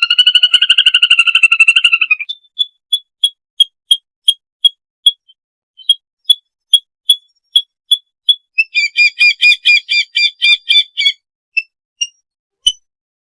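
Lesser whistling ducks giving their flock-gathering call, a clean lure recording: a rapid trill of high whistled notes for about two seconds, then single sharp whistles two or three a second, then another rapid burst of notes about two-thirds of the way through.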